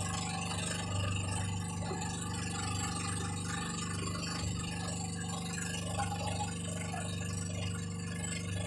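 Motorboat engine droning steadily under way, its low hum pulsing slowly, with wind noise rushing over it.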